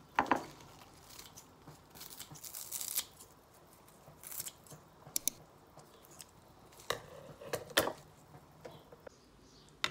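Kitchen scissors snipping fresh coriander: short, sharp snips at irregular intervals.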